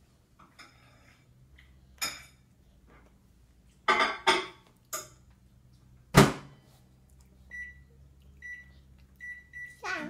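Microwave oven being worked: several sharp clacks of the door and handling, the loudest about six seconds in, then four short high keypad beeps, and the oven's steady hum starting at the very end.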